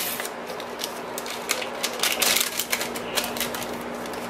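Small paper sachet of baking powder crinkling and rustling as it is opened and shaken out over a steel mixing bowl: a run of quick crackles, densest in the middle.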